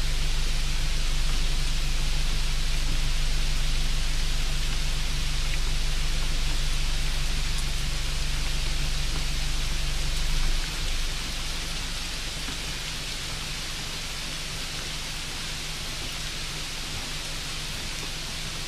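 Steady hissing noise with a low hum underneath; the hum and overall level drop about ten and a half seconds in.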